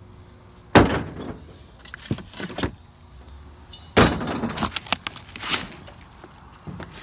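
Rummaging through dumpster debris: a sharp knock or clatter about a second in and another about four seconds in, each followed by rustling and rattling as cardboard boxes and junk are shifted.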